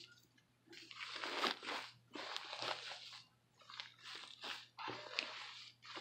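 Fluffy shaving-cream slime being squished and kneaded by hand, crackling and popping in about five uneven bursts with short pauses between.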